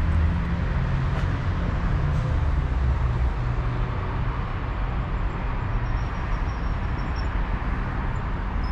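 Street traffic noise: a steady low rumble of vehicles, heaviest in the first few seconds, with a faint high whine coming in about six seconds in.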